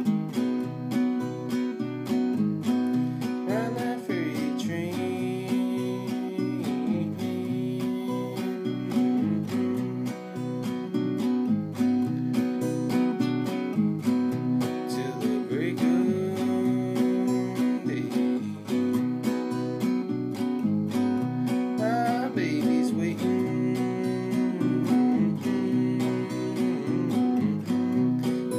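Acoustic guitar strummed in a steady rhythm, ringing chords played without singing.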